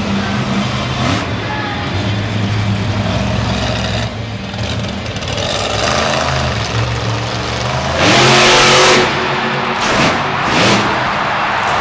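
Xtermigator monster truck's V8 engine running and revving as the truck drives over the dirt. About eight seconds in it goes to a loud full-throttle rev with the pitch rising, the launch into a backflip, followed by a couple of shorter revs.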